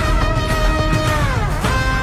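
Background music with sustained pitched notes that slide down in pitch and quickly back up about a second and a half in.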